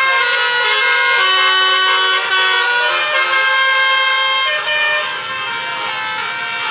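Basuri 'telolet' multi-tone bus horns playing a melody, several horn tones sounding at once and stepping from note to note every fraction of a second. It gets a little quieter from about five seconds in.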